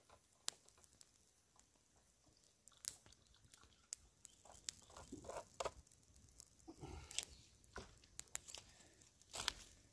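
Faint, scattered crackles and clicks, a few sharper snaps among softer rustling.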